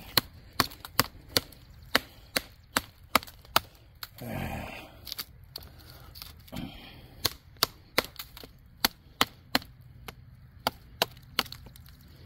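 The blade of a Survive Knives GSO 4.5 Bushcraft, a thin-ground K890 steel belt knife, chopping repeatedly into a tree stump. Sharp wooden knocks come about two to three a second, broken around four to six seconds in by one longer, rougher sound before the strikes resume.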